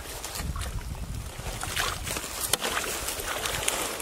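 Hands sloshing and splashing in shallow muddy water while groping for fish, with a few sharper splashes about two seconds in. Wind rumbles on the microphone throughout.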